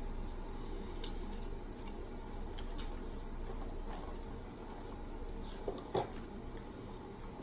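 Eating and table-handling noises from a Chick-fil-A meal: plastic sauce cups and food packaging being set down and handled, with a few light clicks and taps. The sharpest click comes about six seconds in.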